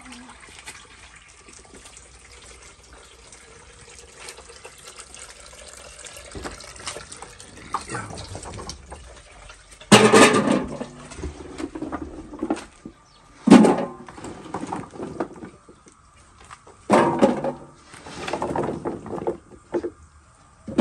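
Water running from a tap into a container as it fills, a steady rush. From about halfway through, several loud sudden knocks or clatters sound over it.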